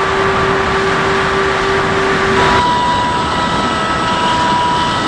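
Electric ducted fans of an RC model plane in flight, heard from an onboard camera: a steady fan whine over loud wind rush. About halfway through, the whine shifts to a higher pitch.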